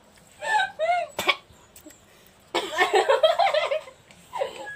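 Girls and a young woman laughing and shrieking in short bursts, with a sharp tap about a second in. The loudest burst of laughter comes about two and a half seconds in and lasts about a second.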